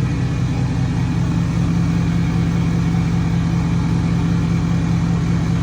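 Ford F-250 Super Duty diesel engine idling steadily.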